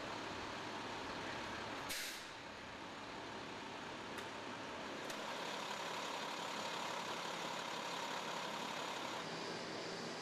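A large vehicle idling with a steady hum and hiss, with a short sharp burst of air about two seconds in and two faint clicks a few seconds later.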